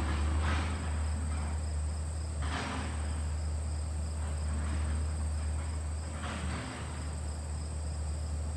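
LG air conditioner running hard with its replaced condenser fan motor: a steady low hum from the unit, with a rush of air that swells three times. A steady high-pitched tone sits over it.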